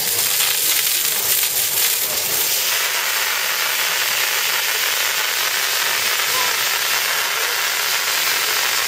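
A hose sprays a strong jet of water onto an Asian elephant, a steady hiss of spray splashing on her hide. About three seconds in, the hiss grows fuller and steadier.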